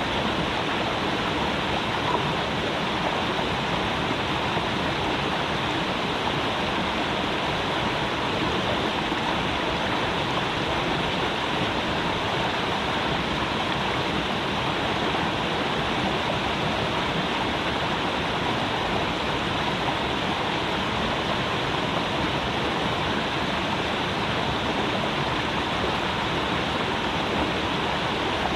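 Creek water running steadily, an even rushing and burbling.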